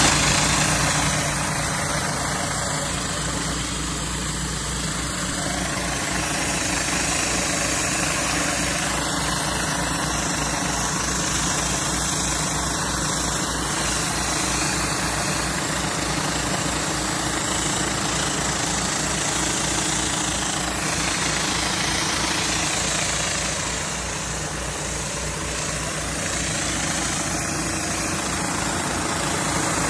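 Pressure washer engine running steadily under the continuous hiss of high-pressure water jets from a Whisper Wash Maxima 36-inch surface cleaner as it is pushed over wet concrete.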